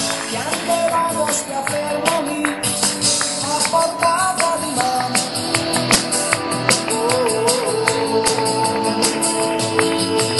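Live music: a man singing into a handheld microphone, his voice wavering in pitch, over acoustic guitar and a busy jingling percussive beat.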